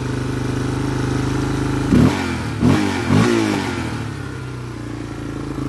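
Yamaha Warrior 350's air-cooled single-cylinder four-stroke engine idling, then blipped three times in quick succession about two to three seconds in, revving up and dropping straight back to idle. On its new carburettor, with the choke off, it picks up immediately with no hiccup.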